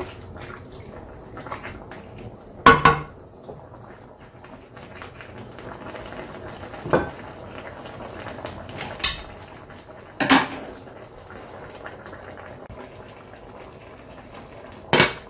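Pork simmering in its juices in a stainless steel skillet, a steady bubbling, broken by about five sharp clanks of utensils against the pan and plate, one of them ringing briefly.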